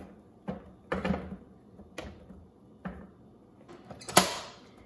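Soft knocks and thumps as banana chunks are tipped into a plastic food processor jar, then one sharp plastic click near the end as the lid is locked onto the jar.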